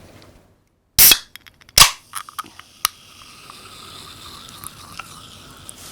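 Two loud, sharp bangs about a second apart, followed by a few lighter clicks.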